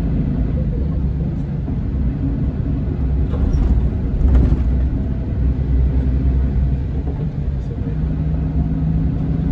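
Scania K410 coach engine running with a steady low rumble and a steady engine tone, with a short louder swell about four seconds in.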